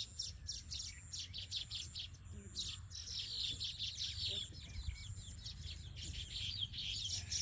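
Birds chirping in a dense chorus of quick, overlapping high chirps, thickest in the middle, over a low steady rumble.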